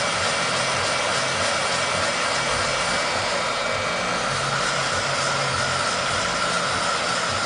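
Heat gun running steadily, its fan blowing hot air with a constant whine over the hiss, heating a laptop's graphics chip to reflow its solder.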